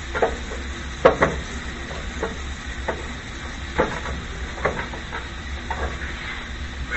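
Scattered light knocks and taps of kitchen items being handled while the stovetop is wiped up, about ten over several seconds, over a steady low hum.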